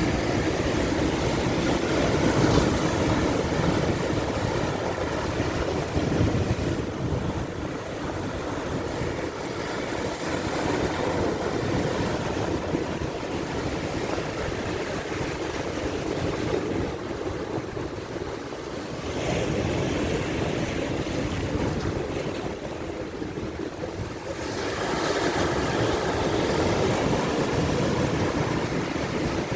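Ocean surf breaking on a sandy beach at high tide: a continuous wash of waves that swells and ebbs as each set comes in. It is louder at the start and again near the end.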